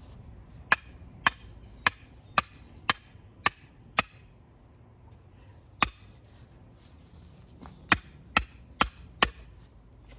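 A hammer striking a J-hook, a curved rebar stake, to drive it into the ground: a run of seven sharp strikes about half a second apart, a single strike, then four more in quick succession near the end.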